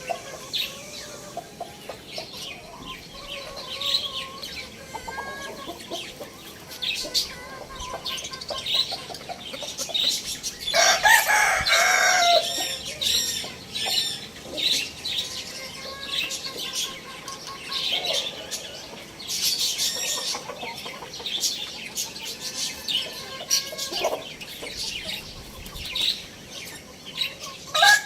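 Chickens clucking and calling, with many short clicks, and one loud drawn-out call about eleven seconds in.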